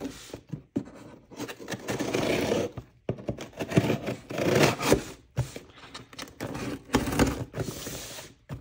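An open scissors blade slitting the packing tape along the seams of a cardboard shipping box, scraping over the cardboard in several long strokes with short pauses between them.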